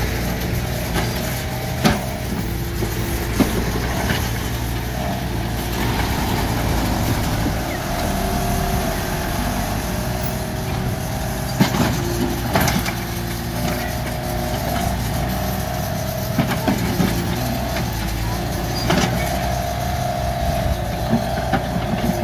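Mini excavator's diesel engine running steadily, with a whine that wavers in pitch and a few sharp metallic clanks.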